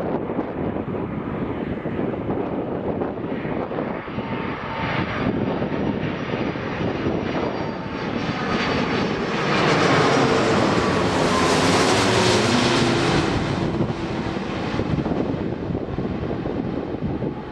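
Airbus A330-300 airliner on landing approach passing close by, its Rolls-Royce Trent 700 jet engines making a rumbling noise that builds to its loudest about ten to thirteen seconds in, with tones falling in pitch as it goes past, then easing off.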